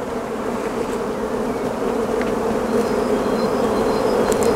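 Honeybees buzzing steadily in a hum from an opened hive during a frame inspection, swelling slightly louder as it goes.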